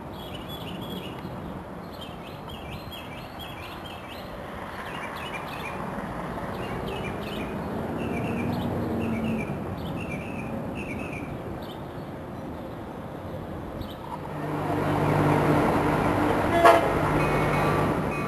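Trinity Railway Express commuter train sounding its horn as it approaches cab car first: a chord of steady tones starting about 14 seconds in, over the rumble of the train. Before the horn there is only a low rumble with short high chirps, and a sharp clank comes near the end.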